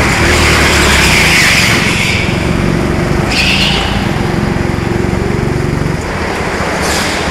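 Four-stroke petrol go-kart engine running under throttle, heard from the driver's seat; the engine note drops in level about six seconds in.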